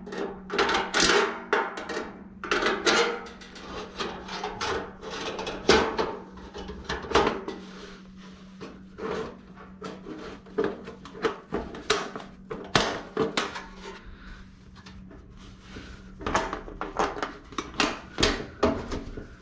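Hand tin snips clipping notches into a galvanized sheet-metal diffuser collar, then a galvanized duct elbow being worked and pushed down over the notched collar: a run of sharp metal clicks, snips and scrapes, thinning out in the middle and picking up again near the end.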